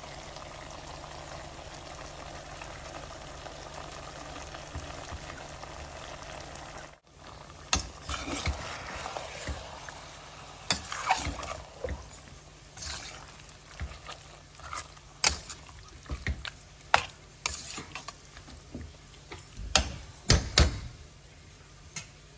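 Chicken masala sizzling steadily in a metal pressure cooker for about seven seconds. After a sudden cut, a ladle stirs and scrapes through the mixture, with irregular clinks and knocks against the cooker's metal.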